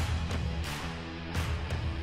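Background music with a low held bass line and recurring drum hits.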